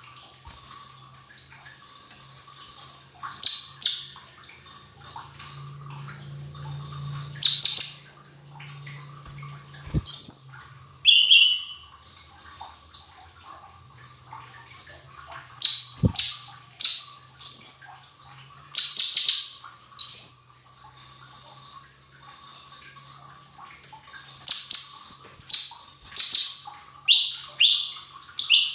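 Lesser green leafbird (cucak ijo mini) calling: clusters of short, sharp, high chirps with pauses between them, over a faint steady hum.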